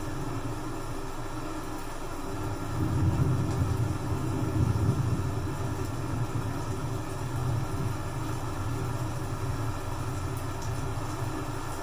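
Thunder rumbling low and long, swelling about three seconds in and easing after about five, over a steady hiss of rain.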